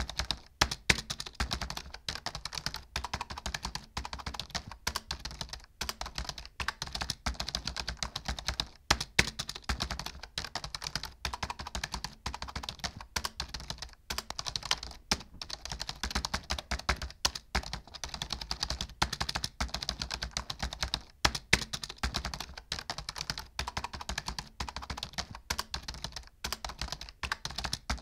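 Computer keyboard typing: a fast, continuous run of keystroke clicks.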